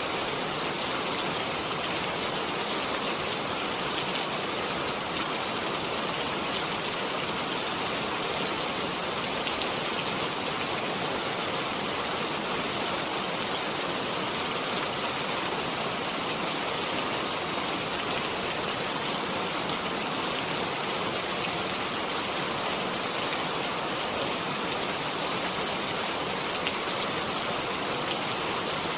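Steady rain falling, an even hiss with fine patter of drops and no change in strength.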